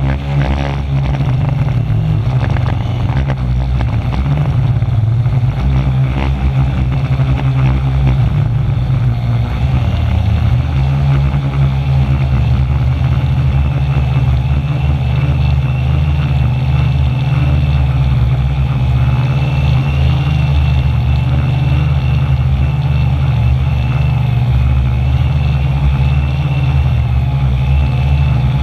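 Quadcopter's electric motors and propellers buzzing loudly, heard from a camera mounted on the frame. The pitch shifts during the first several seconds, then holds steady with a thin high whine as the drone hovers low.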